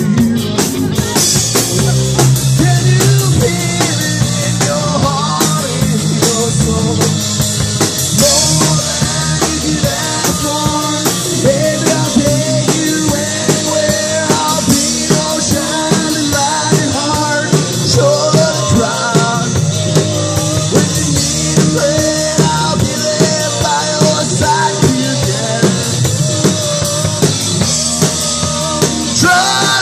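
Live rock band playing: a drum kit keeps a steady beat under guitar, with a wavering melodic line running over the top.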